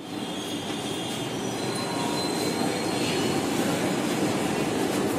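Kolkata Metro train running, heard from inside the car: a steady rumble with a thin, faint high whine above it.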